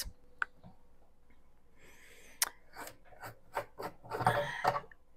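Large screw cap being twisted open on a hard-plastic 10-litre camping water container: a few scattered light clicks, then a quicker run of small plastic clicks and scrapes in the last second or so.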